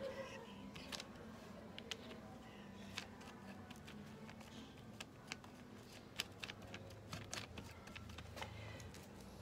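Palette knife mixing oil and cold wax paint on a paper palette: faint, irregular clicks and taps of the blade over a low steady hum.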